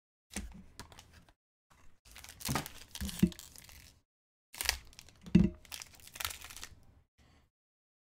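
Foil wrapper of a Topps Inception trading-card pack being torn open and crinkled by hand, in three bursts of tearing and crinkling with sharp crackles; the loudest crackle comes a little past the middle.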